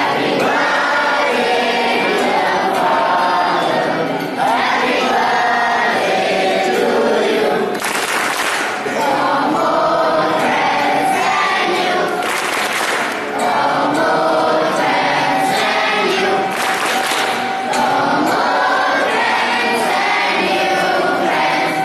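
A group of people singing together in chorus around a birthday cake.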